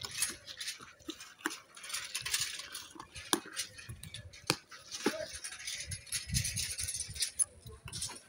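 Cardboard shipping box being opened by hand: the flaps scrape and rustle in uneven bursts, with a few sharp clicks.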